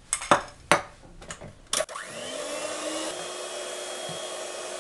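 A few short knocks and clinks, then an electric hand mixer switched on about two seconds in: its motor spins up with a rising whine and settles into a steady run as the beaters whip sour cream, sugar and butter into a cream.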